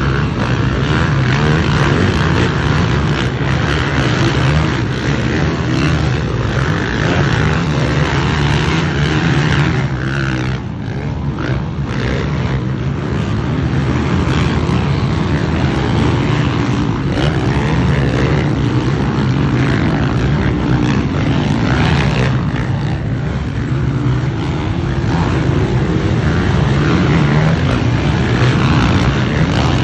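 450-class motocross bike engines running under race load, loud and continuous, with a brief drop in level a little over ten seconds in.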